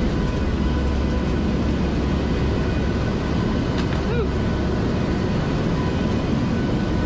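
Steady drone of a hurricane hunter aircraft's engines and airflow heard inside the cabin in flight: a low rumble with faint steady engine tones running through it. A brief squeak comes a little past four seconds in.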